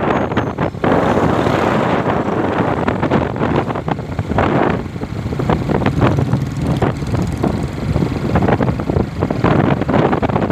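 Wind buffeting the microphone while riding on a moving motorcycle, a loud, rough, fluttering rush with the motorcycle's travel noise under it.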